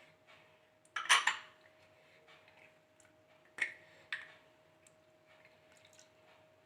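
Spoons and bowls clinking and knocking as spice-masala ingredients are tipped into a mixing bowl: a quick cluster of clinks about a second in, then two single knocks a little after the middle, over a faint steady hum.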